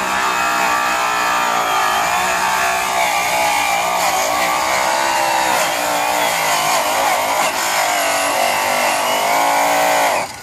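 High-speed handheld rotary polisher running a yellow buff pressed against an aluminum truck wheel, cutting it with compound. A loud, steady motor whine whose pitch wavers slightly as the buff bears on the metal, cutting off suddenly about ten seconds in.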